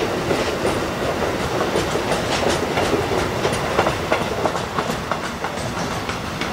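Container wagons of a freight train rolling past, their wheels clacking over rail joints in irregular clusters, over a steady hiss of heavy rain. The clacking thins out near the end as the last wagons go by.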